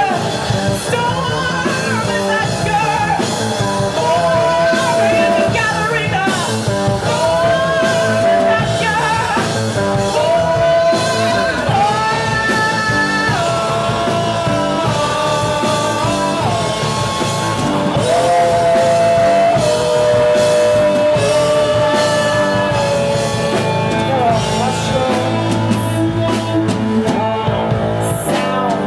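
Live rock band playing, with a singing voice carrying the melody over drums and instruments.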